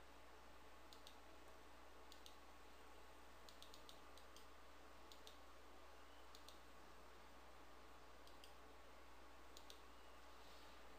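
Faint computer mouse clicks, most in quick press-and-release pairs, coming every second or so, over a steady low hum.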